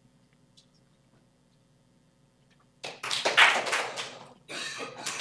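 Audience clapping in two waves after almost three seconds of near silence: a first burst of clapping, a short dip, then a second wave near the end. The clapping marks where listeners expect the ball to land, and its two waves sound bimodal.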